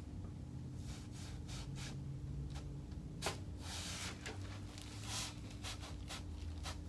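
Soft rubbing and rustling of hands, clothing and the treatment table during hands-on chiropractic work, with a short sharp click a little over three seconds in, over a faint steady hum.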